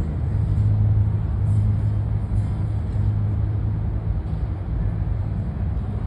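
Road traffic: a steady low engine hum that swells a little about half a second in and eases off after a few seconds.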